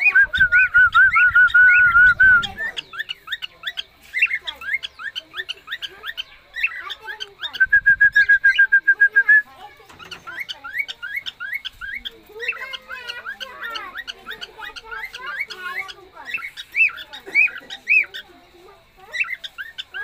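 Cockatiels chirping over and over in short calls, with two loud, rapid trilled calls: one at the start lasting a couple of seconds, another about eight seconds in.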